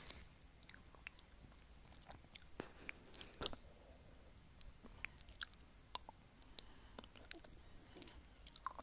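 Close-miked mouth sounds of a tongue licking a hard swirl lollipop: faint, irregular clicks and smacks, with the loudest cluster about three and a half seconds in.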